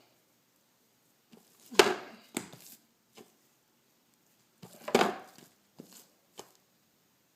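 Balls of bread dough being set down and handled on a kitchen counter and scale: two louder thuds about three seconds apart, with a few lighter taps and knocks between and after.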